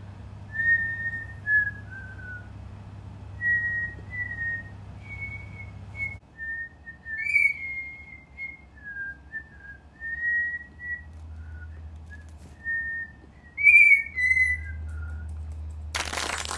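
A slow, halting whistled tune, single pure notes one at a time with pauses between them, as a melody is practised note by note; a few notes near the middle and end ring louder and brighter. A burst of bright noise comes in just before the end.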